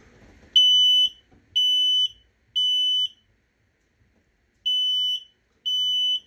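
Kidde smoke alarm sounding its push-button self-test: loud, high-pitched beeps in the three-beep temporal evacuation pattern. There are three beeps about a second apart, a pause, then two more as the next group begins.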